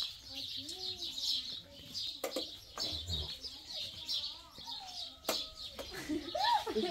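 Small birds chirping over and over, with a few sharp clicks and some lower gliding calls, the loudest near the end.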